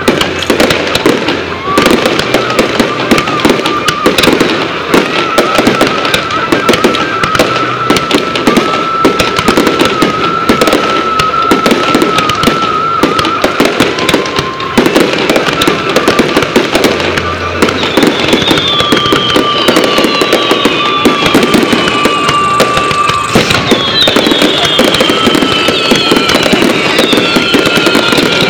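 Fireworks finale: a continuous dense barrage of rapid bangs and crackling from many shells and ground effects firing at once. A high held tone runs through much of it, and in the last third several high falling whistles sound over the bangs.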